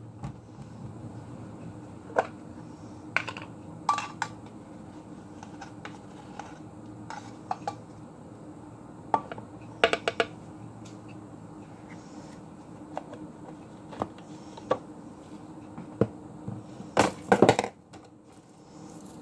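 Scattered light clicks, clinks and knocks of kitchen containers and a measuring spoon being handled and set down on a counter while baking soda is measured out, with a louder cluster of knocks near the end. A low steady hum runs underneath and stops shortly before the end.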